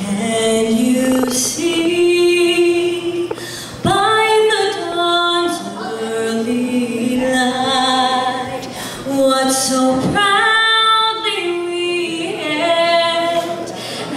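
A woman singing into a microphone, in long held notes that slide from pitch to pitch.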